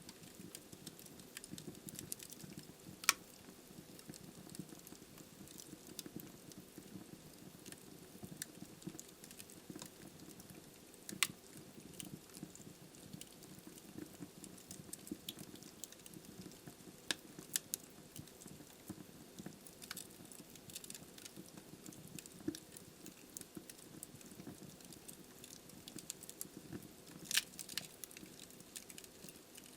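Wood fire burning in a fireplace: logs crackling with many small scattered clicks over a faint, steady low burning noise, and a few sharper pops spread through.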